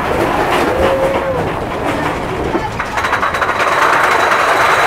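Big Thunder Mountain Railroad's mine-train roller coaster running along its track, heard from a seat on board: a loud rolling rumble and rattle that turns to a rapid, even clatter about three seconds in.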